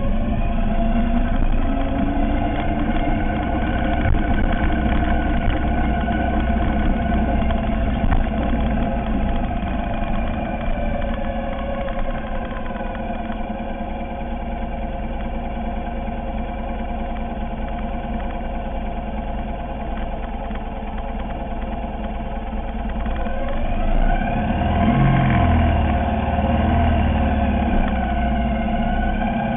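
Ural sidecar motorcycle's air-cooled boxer-twin engine, heard from on the bike. It runs as the bike rolls along, then idles steadily while stopped. About 24 seconds in it gives a brief rev and then runs a little faster.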